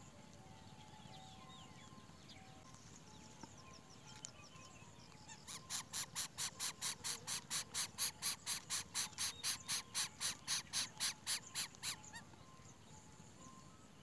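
An animal's fast, evenly pulsed call, about five pulses a second, starting about five seconds in and running for some six seconds before stopping abruptly, over faint chirps in the background.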